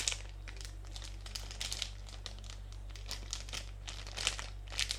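Crinkly plastic squishy packaging being handled, crackling irregularly.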